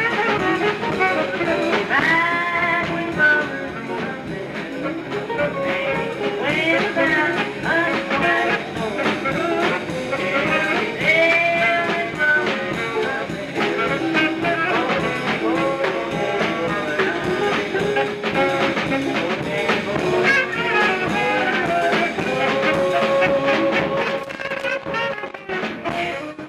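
Music led by a brass instrument playing a melody, some notes sliding in pitch, over accompaniment.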